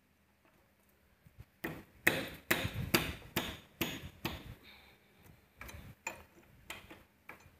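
A quick run of sharp hammer strikes on motorcycle engine parts during teardown, about eight to ten in three seconds starting a second and a half in, then a few fainter taps.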